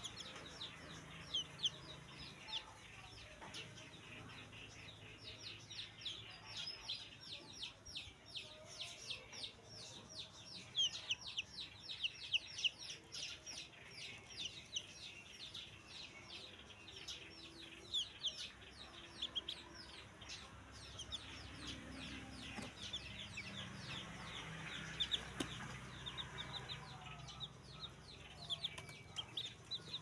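Newly hatched chicks peeping: a dense stream of short, high, downward-sliding peeps, several a second, from more than one chick.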